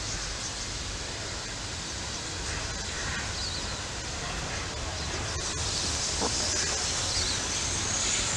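Steady outdoor wind-like rushing with a few faint chirps. Toward the end a hiss rises and grows louder as the steam locomotive J549 starts to move out of its shed.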